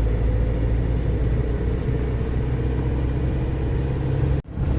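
GAZelle Next light truck driving at road speed: a steady engine and road drone with a constant low hum. The sound cuts out for a split second near the end.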